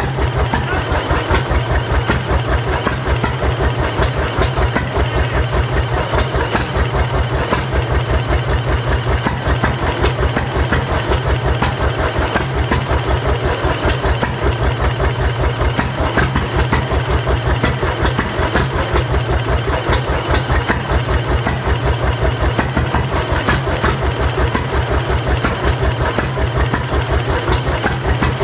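1936 John Deere Model D tractor's two-cylinder engine running steadily at idle, with an even, regular beat that holds the same throughout.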